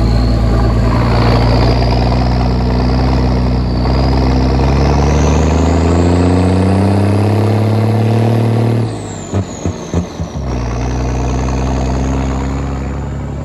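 M35 deuce-and-a-half army truck engine pulling under load, its pitch climbing steadily as the truck accelerates, with a high whine rising alongside. About nine seconds in the revs fall away and break up into a few short choppy pulses, as at a gear change, before the engine runs steady again.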